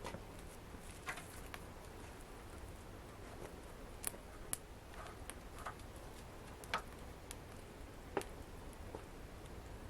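Wood fire crackling in a fireplace: about ten sharp pops and snaps at irregular intervals over a low steady rumble.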